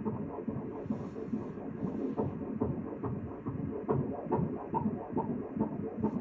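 A 33-week fetus's heartbeat on an obstetric ultrasound machine's Doppler, played through the machine's speaker: a steady rhythmic pulsing, a little over two beats a second, at a heart rate of about 136 beats a minute.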